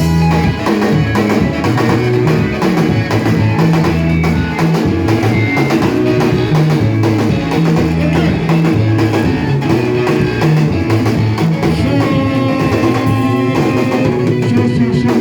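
Live band music with electric guitar, bass and drum kit playing a steady beat.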